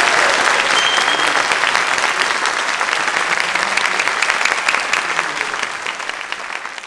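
A large concert-hall audience applauding, with dense clapping that thins and fades toward the end.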